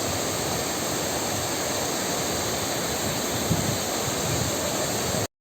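Waterfall's water falling and splashing, a steady even rush that cuts off abruptly near the end.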